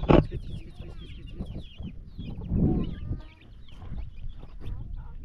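Hen clucking while her chicks peep in many short, high, falling notes; a sharp thump sounds right at the start.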